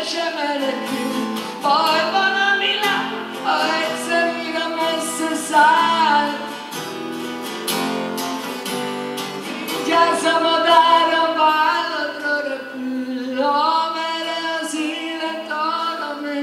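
A male singer's voice carrying a long, sliding melody into a stage microphone over instrumental backing, in a live rock performance.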